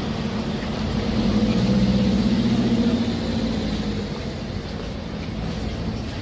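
A motor vehicle passing close by in city traffic, its engine hum swelling to a peak a second or two in and then fading away.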